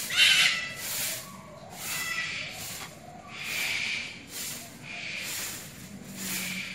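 Pangolin huffing, a string of short breathy hisses about one a second, the first one the loudest.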